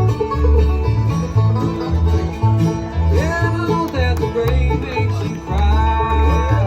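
Bluegrass band playing live: banjo and guitar over a bouncing two-note bass line. A lead line slides up into long held notes about halfway in and again near the end.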